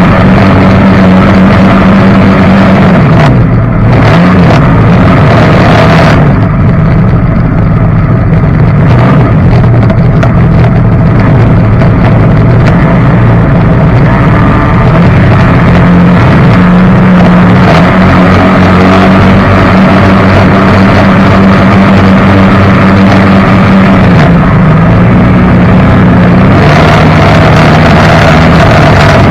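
Jet boat engine running loud and continuous under way, its pitch dipping and recovering a few times as the throttle changes. A hiss of rushing air or water eases off a few seconds in and comes back near the end.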